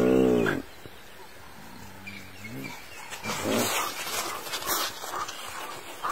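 Spotted hyena and African wild dogs calling at close quarters. A long, low, drawn-out call cuts off about half a second in, a quieter low moan follows around two seconds, and then come short high-pitched yelps and squeaks.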